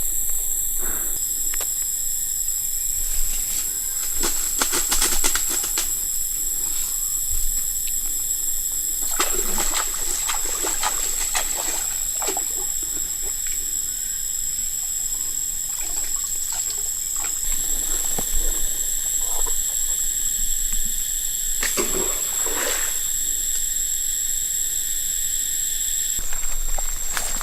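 Water splashing and trickling in a few short bouts over a steady high-pitched outdoor hiss.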